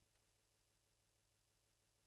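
Near silence: only a faint steady hiss and low hum.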